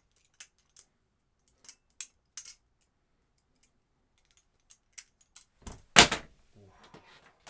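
Practice butterfly knife (balisong) being flipped: the metal handles and blunt trainer blade click and clack against each other at irregular intervals, with one much louder knock about six seconds in.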